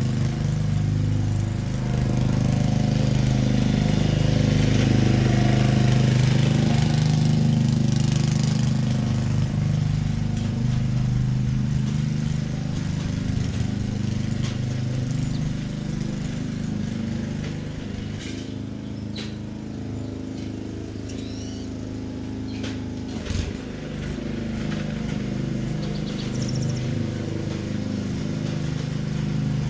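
Small gas engine of a lawn core aerator running steadily, growing fainter in the middle as the machine works farther off, then louder again near the end.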